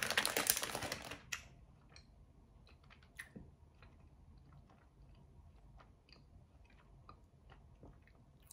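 Plastic bag of Trolli sour gummy worms crinkling for about a second as a worm is pulled out, followed by faint, scattered small clicks and ticks.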